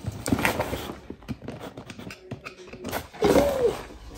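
Craft knife slitting the packing tape on a cardboard box, with scraping, tearing and crackling of tape and cardboard as the flaps are pulled open, and a brief wavering tone about three seconds in.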